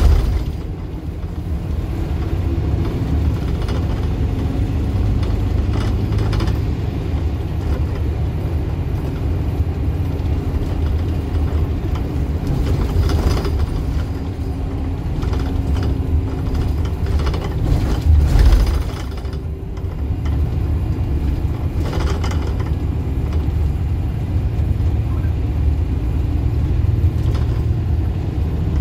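Bus engine running with a steady low rumble, heard from inside the passenger cabin, with short rattles and knocks from the interior and one louder knock about two-thirds of the way through.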